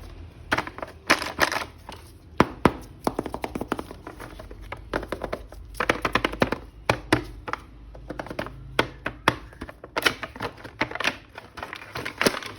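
Hands handling a plastic action figure and its packaging: irregular clicks, taps and crackles, some coming in quick runs.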